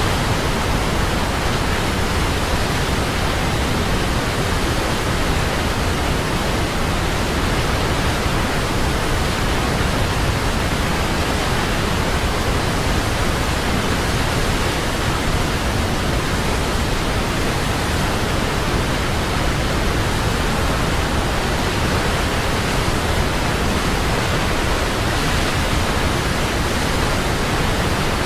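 A large waterfall: a steady, loud rush of falling water with no breaks.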